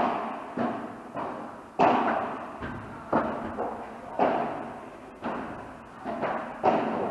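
Padel rally: a quick run of sharp ball strikes from rackets and bounces off the court, roughly one every half second to second, each with a short echo.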